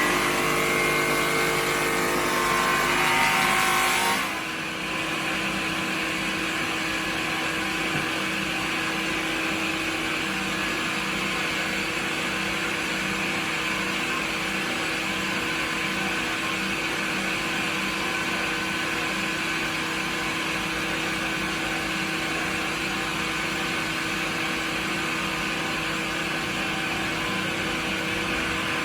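A motor running steadily with a constant hum and hiss. About four seconds in, the sound shifts from several held tones to a steadier, slightly quieter drone.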